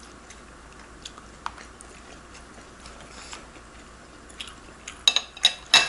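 Soft chewing with faint mouth clicks. Near the end come several sharp, ringing clinks of eating utensils against a dish.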